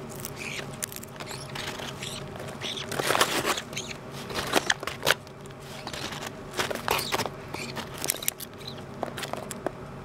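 Sun conure burrowing through a bucket of popcorn with its beak and head: irregular rustling, crunching and crackling of the popcorn, with many sharp clicks. Louder around three seconds in and again near seven seconds.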